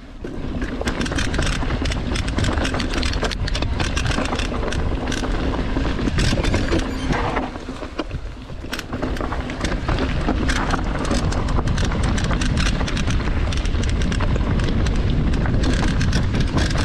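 Heavy wind buffeting on a moving camera's microphone over a deep rumble and constant rattling clicks, the noise of travelling fast over rough ground. It eases briefly about seven to eight seconds in.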